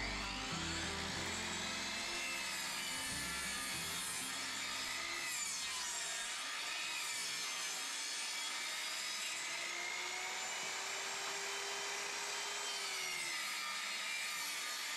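Portable table saw running and cutting wooden boards, a steady whining saw noise whose pitch wavers as the blade works through the wood.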